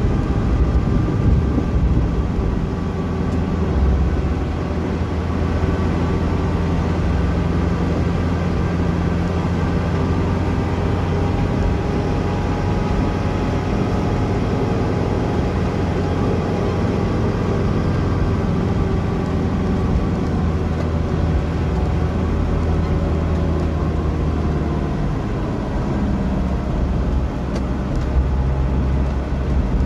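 Engine and tyre noise of a moving motor vehicle heard from inside the cabin: a steady low drone whose engine pitch slowly rises and falls as it drives along.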